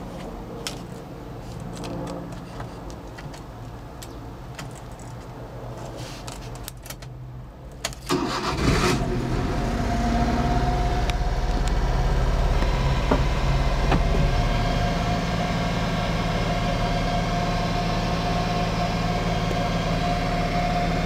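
Honda Acty HA2 kei truck being started: a few light clicks of the key in the ignition, then about eight seconds in the engine cranks briefly, catches and settles into a steady idle that eases down slightly a few seconds later.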